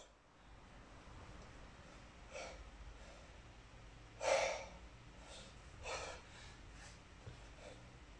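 A man breathing forcefully through kettlebell snatches with a 32 kg bell, one sharp breath every second or two. The loudest breath comes a little past the middle.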